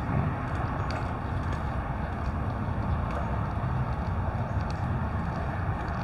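Steady low outdoor rumble with no pitch to it, with a few faint, short high ticks scattered through it.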